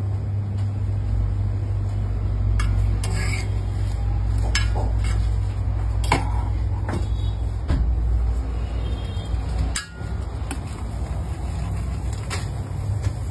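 Steady low rumble with scattered sharp clicks and knocks, some of them likely a metal spatula on an iron griddle.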